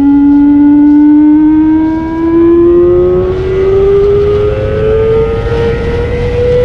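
Kawasaki ZX25R's 250 cc inline-four engine pulling hard under acceleration, its high-pitched note rising smoothly and steadily through the revs in one long pull without a gear change.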